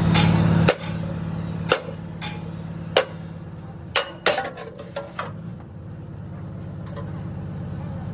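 Hammer blows on metal, about eight sharp knocks at uneven spacing of roughly a second, over a steady low machine hum.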